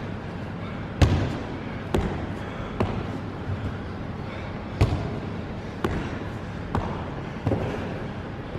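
Box step-ups: feet thud onto a padded box and back down onto a wooden floor, a string of sharp thuds at roughly one a second, with the loudest about a second in.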